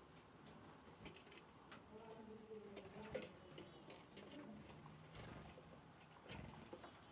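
Faint bird sounds from a Cat TV bird video played through a TV speaker: a low, wavering dove-like cooing with scattered light clicks.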